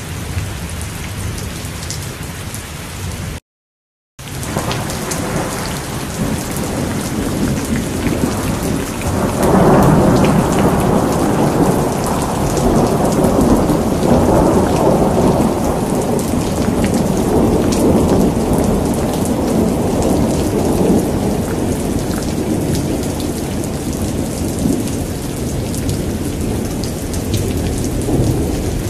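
Steady heavy rain with a long rolling rumble of thunder that builds about nine seconds in, holds for several seconds and slowly dies away. The sound cuts out completely for under a second about three and a half seconds in.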